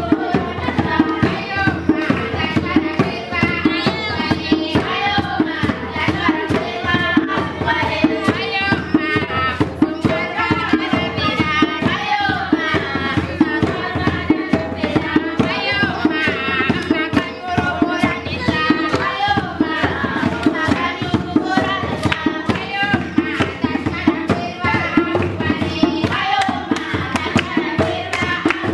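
A group of children singing together over steady rhythmic hand-clapping.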